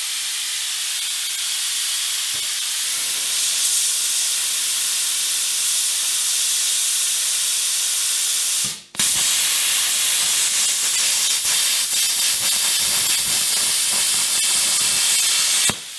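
Plasma torch cutting steel plate: a loud, steady hiss of the air-plasma arc. It stops for a moment about nine seconds in, starts again, and cuts off just before the end.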